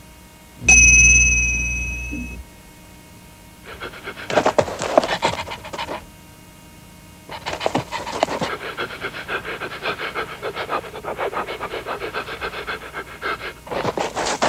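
Cartoon sound effects for an animated dog: a sudden ringing tone with a low thud about a second in, fading over a second or so. Then come long runs of rapid, breathy panting.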